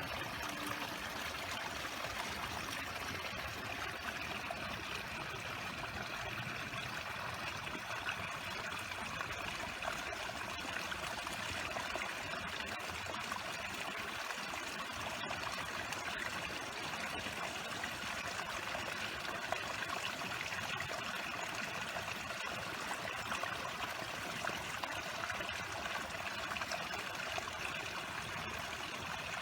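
A stream running steadily: an even, continuous rush of flowing water with no breaks.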